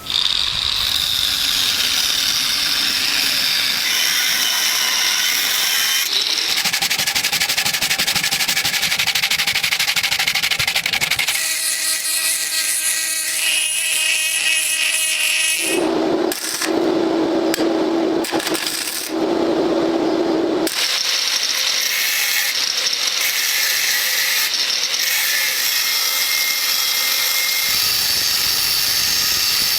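Small power tools working on rusted metal gun parts, a steady high-pitched grinding and whirring whose pitch and texture change abruptly several times as the work changes.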